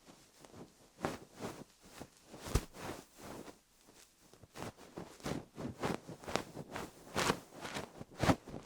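Fluff brushed against a rhinestone-covered dummy-head microphone in a run of soft, irregular rustling strokes, a few per second, two of them louder, about two and a half seconds in and near the end.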